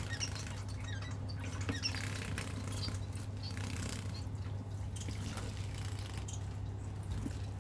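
Society finches bathing: wings fluttering and splashing in water, with short high chirps now and then, over a steady low hum.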